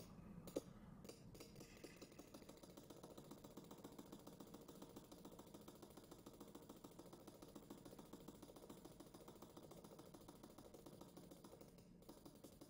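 Near silence: faint room tone, with a single faint computer-mouse click about half a second in.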